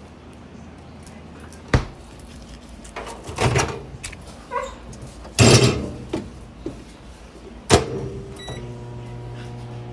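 Microwave oven being loaded and started: sharp clacks of its door and a few rustling handling noises, then a short beep about eight and a half seconds in and the steady hum of the oven running.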